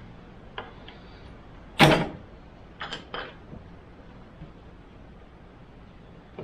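Hand work on the carburettors while the hot-air pipe to the AED is worked loose: one sharp metal knock about two seconds in, the loudest sound, with a fainter click before it and two lighter clicks about a second later.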